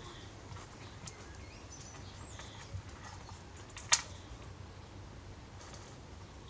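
A few small, sparse clicks of components and wire leads being handled on a breadboard, the sharpest about four seconds in.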